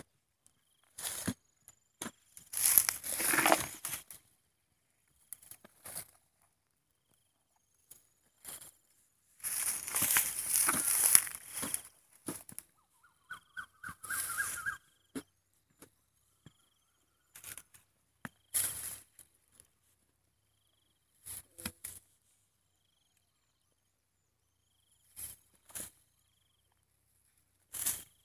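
Dry rice stubble, grass and soil rustling and scraping as a crab burrow is dug out with a digging stick and by hand, in irregular bursts with near-quiet gaps; the longest stretch of rustling comes about ten seconds in.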